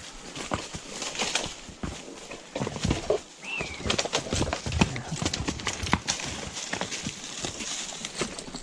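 Horses walking through brush on rocky ground: irregular hoof clops with branches scraping past. A brief high chirp comes about three and a half seconds in.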